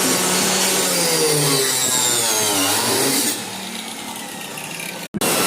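Electric woodworking power tool running under load, its pitch sliding down and back up. It drops to a quieter level about three seconds in, cuts out for an instant near the end and comes back loud.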